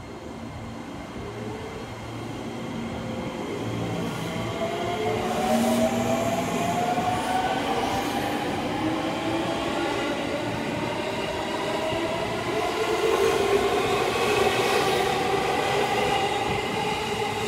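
JR 205 series electric commuter train pulling away from a station platform and accelerating past. Its traction motors give a whine of several tones that climbs steadily in pitch as speed builds, growing louder over the first few seconds, over the rumble of the wheels on the rails.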